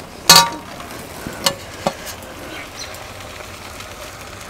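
Kitchen utensils knocking against a cooking pot while the steamed leaf rolls are lifted out: one loud ringing clang about a third of a second in, then two lighter clinks, over a low steady hiss.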